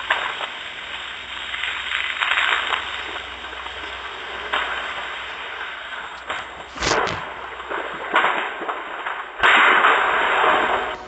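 Audio played backwards: a steady hiss broken by a few sharp bangs, the loudest about seven seconds in, and a louder burst of hiss that starts abruptly near the end.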